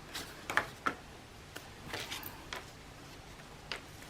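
Paper and craft pieces being handled on a work table: a handful of light, scattered taps and rustles.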